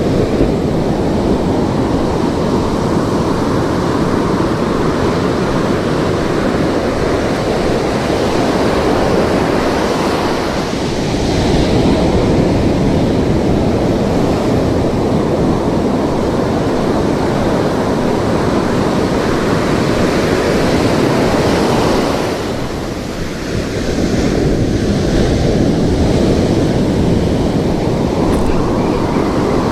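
Ocean surf breaking and washing up a beach, a steady rushing noise mixed with wind on the microphone. It eases briefly twice, about a third and three-quarters of the way through, and swells again as new waves break.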